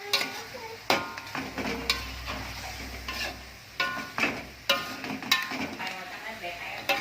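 A spatula stirring fried chicken pieces in sweet-and-sour sauce in a pan, scraping and knocking against the pan several times with a short ring after each knock, over the sizzle of the sauce cooking down as it coats the chicken.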